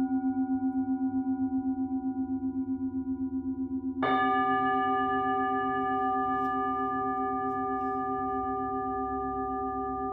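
Singing bowls ringing: a steady, wavering hum, then a fresh strike about four seconds in adds a new set of higher tones that slowly fade.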